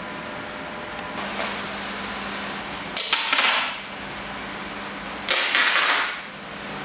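Clear packing tape being pulled off the roll with a crackling rip, twice: once about three seconds in and again about five seconds in, each pull lasting under a second, over a steady background hum.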